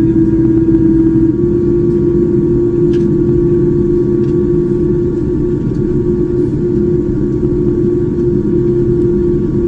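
Boeing 787-9 jet engines and airflow heard from inside the economy cabin: a loud, steady rumble with a steady hum that steps up slightly in pitch about a second and a half in.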